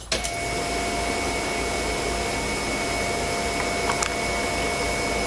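Electric fuel pump of a Toyota MR2 Turbo switching on and running steadily with the engine off, a continuous hum and hiss with a steady whine. Fuel pressure builds to just under 50 psi at the regulator.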